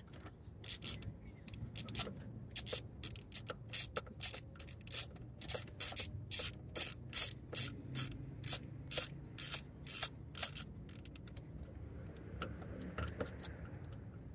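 Hand ratchet being worked back and forth on a fastener at the carburetor: a regular run of short rasping clicks, about two or three a second, that stops about ten seconds in, followed by fainter handling noise.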